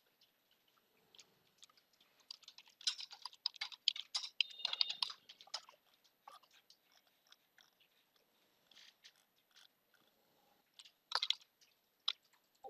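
Computer keyboard typing: a quick run of keystrokes about three to five seconds in, then scattered single key presses and a short burst near the end.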